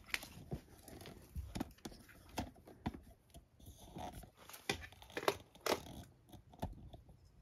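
Irregular footsteps and scuffs on a stone-tile floor, with knocks and a few brief scrapes from handling as someone walks.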